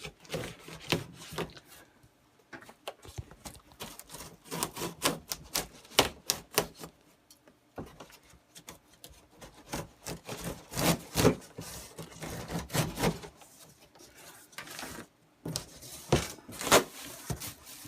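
A cardboard shipping box being opened and unpacked by hand: irregular scraping, rubbing and sharp knocks of cardboard and its contents, coming in short bursts with brief pauses.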